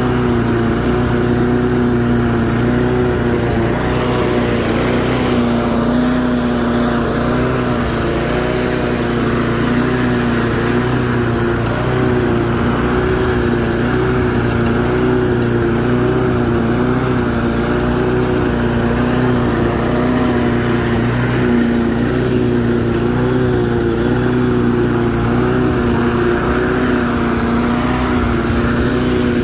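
8.5 hp Briggs & Stratton pressure-washer engine running steadily at working speed on a 20-inch side-discharge push mower deck while mowing grass. Its pitch wavers slightly up and down as the blade takes the grass.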